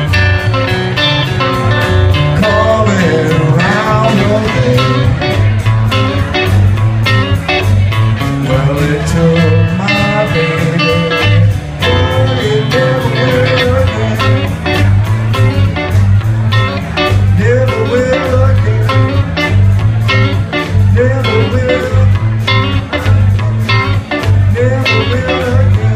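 Live band playing a blues-rock number: electric guitar, electric bass and drums keeping a steady driving beat, with a man singing at times.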